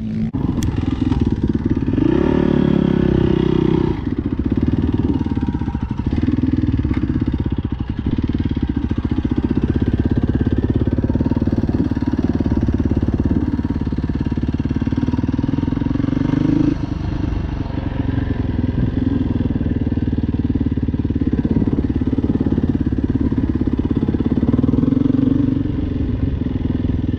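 Yamaha dirt bike engine under way, revving up and backing off as the rider accelerates and shifts. About two seconds in the pitch climbs steadily and breaks off at about four seconds. There is a brief drop near the seventeen-second mark before it picks up again.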